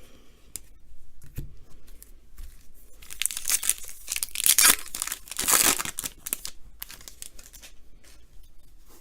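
Foil wrapper of a 2019 Topps baseball card hobby pack being torn open and crinkled by hand, the tearing and crackling loudest from about three to six seconds in.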